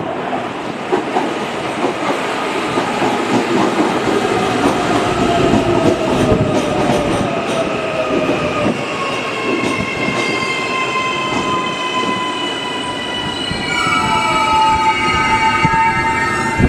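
Auckland AM class electric multiple unit pulling in alongside a platform and slowing to a stop: wheels rumbling on the rails under a falling electric whine, which gives way to several high whining tones in its last seconds of braking.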